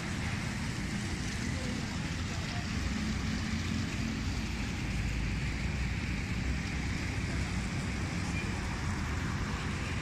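Steady rumbling noise with a hiss above it, unbroken throughout.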